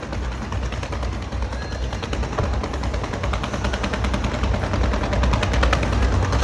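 Aerial fireworks bursting in rapid succession: a dense run of crackling pops, many a second, over a low rumble, growing louder toward the end.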